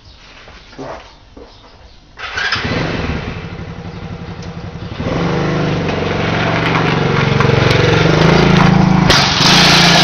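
The 110cc Chinese kids' ATV's small single-cylinder four-stroke engine starts about two seconds in and runs, then gets louder about five seconds in as the quad is ridden off under throttle.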